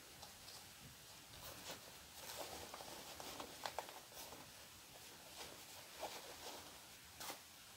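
Faint, scattered rustling of windbreaker fabric as hands smooth and straighten the jacket and pull at its hood.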